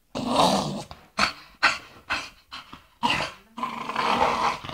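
Dogs growling as a Staffordshire bull terrier and a Jack Russell terrier tussle: one long growl, then a run of short growls about twice a second, then a longer spell of growling near the end.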